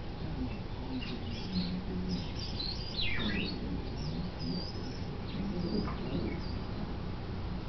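Squeaky rubber ball toy squeaking in several short, high squeals as a mini dachshund bites and chews it, the loudest squeal about three seconds in.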